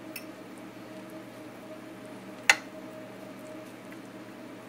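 A metal fork clinks once, sharply, against a glass baking dish about halfway through, with a fainter tick near the start. Under it runs a steady low hum.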